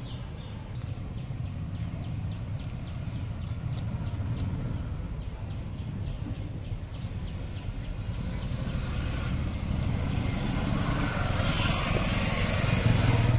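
Street traffic: a steady low engine rumble, with a run of light even ticks about three a second in the first half and a vehicle growing louder near the end.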